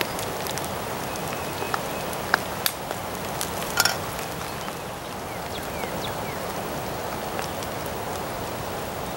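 Steady rain falling, an even hiss with a few sharp ticks, the loudest about four seconds in.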